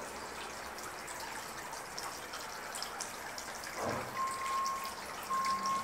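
Water trickling and dripping into a small garden pond, a steady light splashing with many small drips. About four seconds in, a thin high steady tone begins and sounds in short stretches.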